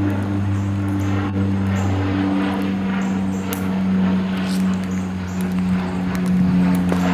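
Steady engine drone with a low hum whose pitch shifts slightly about two seconds in, with scattered sharp clicks about once a second.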